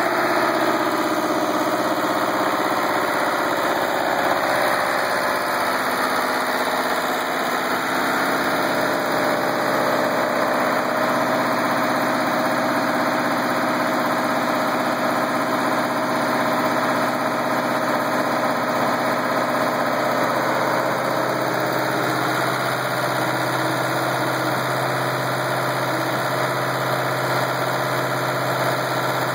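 Cross-roll pipe straightening machine running with a steady, loud mechanical drone from its drive and hydraulics.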